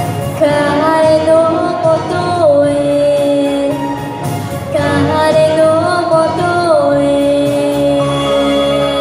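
A young girl singing into a handheld microphone over a karaoke backing track, amplified through stage loudspeakers. She sings long held notes, the last one held steadily through the final couple of seconds.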